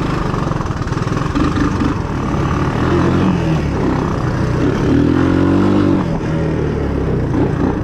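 A vehicle's engine running under way, its pitch rising and falling a couple of times as the throttle changes.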